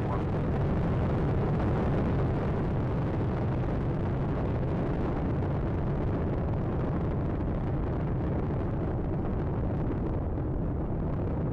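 Space Shuttle Atlantis's rocket roar during ascent: the two solid rocket boosters and three main engines make a steady, deep rumbling noise, with the higher hiss thinning slightly near the end.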